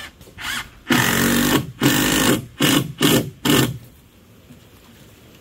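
A power tool run in five short bursts: a longer first run of about two-thirds of a second, then shorter ones, ending a little before four seconds in.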